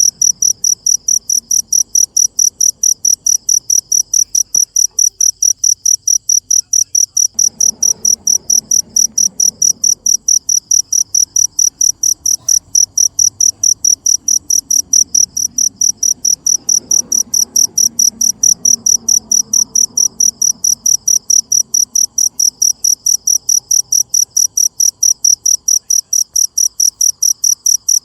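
A cricket chirping at night: loud, high-pitched chirps repeated in a steady, even rhythm of about three to four a second, with a faint low background murmur underneath.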